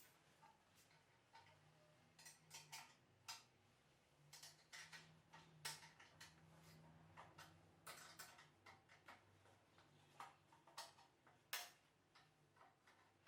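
Faint, irregular light metallic clicks and taps, like hand tools and small metal parts being handled on a bench, over a low steady hum.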